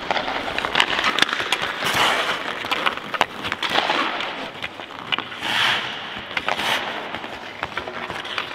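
Ice hockey skate blades carving and scraping across the ice in tight turns and cutbacks, in repeated hissing surges, with sharp clicks of a stick on the puck and ice.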